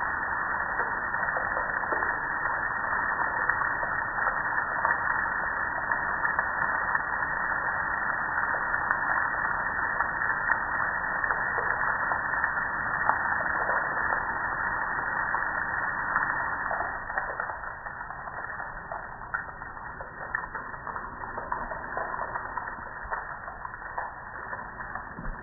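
Water spraying onto a gas grill's metal lid and control panel, a steady hiss with splashing. About two-thirds of the way through it drops off to quieter, patchier splashing.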